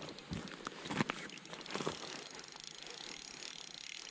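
Spinning reel's drag ticking rapidly as a hooked lake trout pulls line off against 8-pound test, with a few soft knocks from handling the rod.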